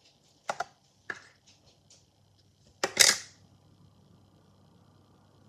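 Sticky homemade slime being squeezed and pulled in the hands, giving sharp popping clicks: two near the start and a louder, longer pop about three seconds in.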